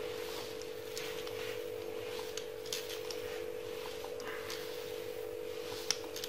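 A steady, constant hum with faint scattered scrapes and a small click near the end.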